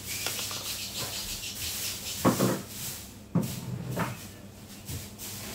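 Hard plastic speaker cabinets being handled: a few sharp knocks, the first about two seconds in and two more near the middle, with light rustling and shuffling between them.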